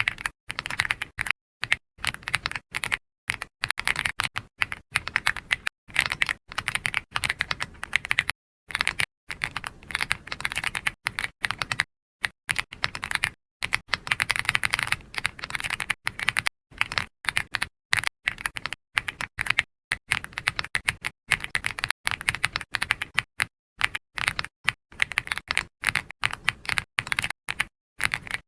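Computer keyboard typing: quick runs of keystroke clicks in bursts, broken by short pauses.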